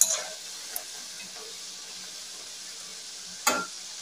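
Wheat-flour namak pare deep-frying in hot oil in a kadhai, a steady sizzle. A spoon knocks against the pan as the pieces are turned, sharply at the start and again about three and a half seconds in.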